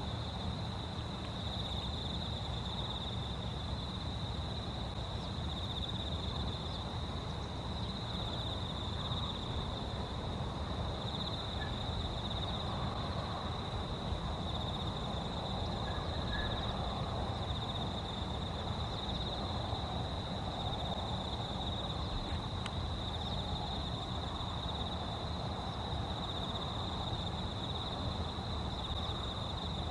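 Steady high-pitched insect trilling that swells and fades gently without a break, over a low rumble of outdoor noise.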